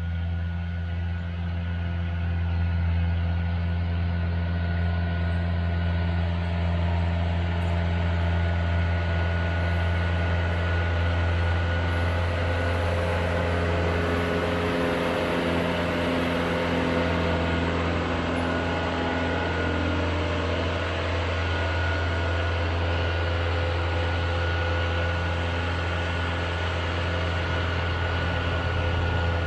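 Vehicle engine running steadily: a constant low hum with fainter tones above it.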